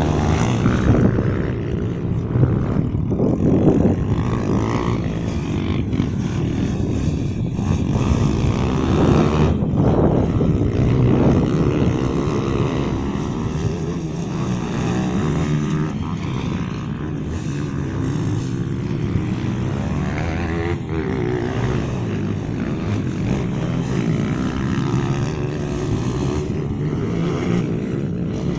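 Several pit bikes' small single-cylinder engines racing around a dirt motocross track, revving up and falling back in pitch over and over as the riders accelerate and ease off, the sound of the engines overlapping.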